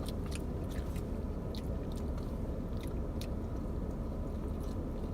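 Close-miked chewing of pizza, with short wet mouth clicks scattered through, over a steady low hum.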